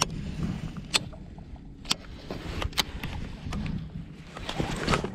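Handling noise of a jacket sleeve and gloved hands right at a chest-mounted microphone: rustling, with sharp clicks about once a second.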